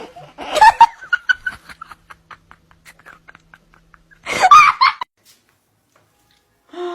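A person laughing in a run of short, fading bursts, with a louder laugh about four seconds in; a cat begins to meow at the very end.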